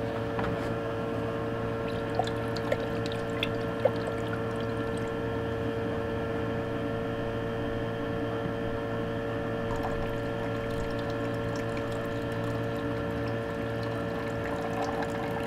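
Rinse water being poured from a glass beaker holding cement silver powder, with a few light glass clicks in the first seconds. A steady electrical hum runs underneath.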